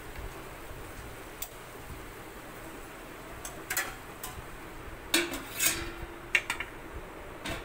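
A serving spoon scraping and knocking against a metal cooking pot as cooked okra is scooped out. It comes as scattered sharp clinks and scrapes, the loudest cluster about five to six seconds in.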